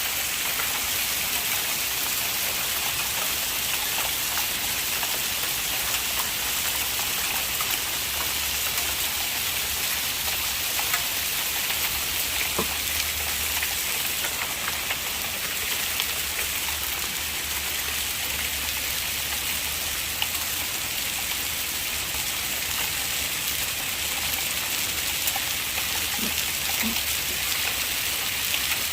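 Heavy rain pouring steadily: a dense hiss with scattered faint ticks of drops striking.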